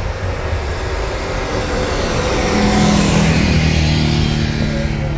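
A car engine under power as the car drives past, growing louder to a peak about three seconds in and then easing off.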